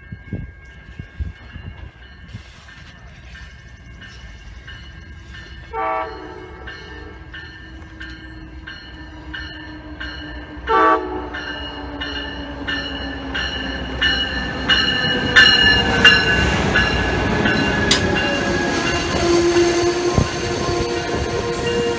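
Amtrak passenger train sounding its horn on approach: a short blast about six seconds in, then a long blast from about eleven seconds that is held on, its pitch slowly falling as the train comes in. The rumble of the train's running gear and wheels on the rails grows louder as the coaches roll past close by.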